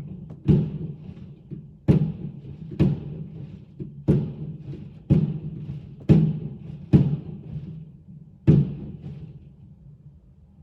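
A fireworks display going off: about eight loud booms roughly a second apart, each trailing off in a low rumble, with fainter pops between them.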